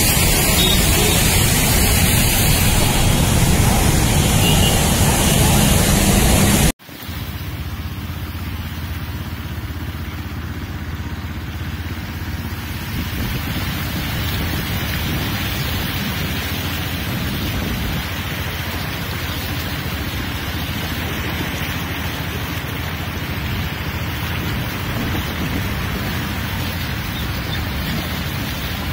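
Loud, steady hiss of heavy rain over a flooded street. It cuts off abruptly about seven seconds in and gives way to a quieter, steady low rumble of a car driving through floodwater in the rain, heard from inside the car.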